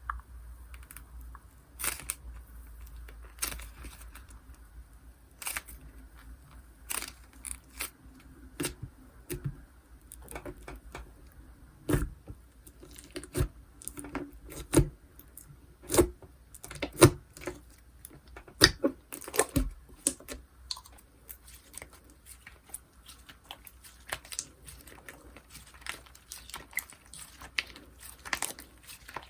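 Slime being pressed, squeezed and stretched by hand, making irregular small clicks and pops that come thicker in the middle.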